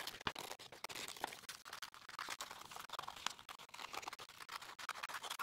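Scissors snipping through a sheet of paper, a quick irregular run of short snips with the paper rustling as it is turned.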